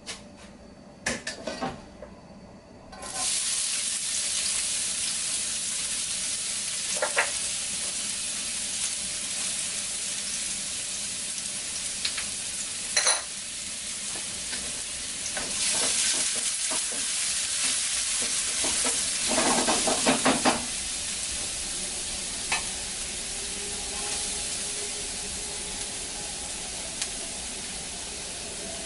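Diced vegetables sizzling in hot oil in a pan, the sizzle starting suddenly about three seconds in and running steadily, with a utensil stirring and knocking against the pan now and then.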